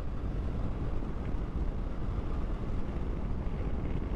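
Triumph Tiger 800's three-cylinder engine running steadily at cruising speed, with a constant rush of wind and road noise on the microphone.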